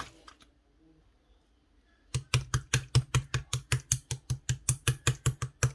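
Clear slime being pressed and poked by hand, giving a fast run of sharp clicking pops about six a second that starts about two seconds in, after a near-quiet stretch.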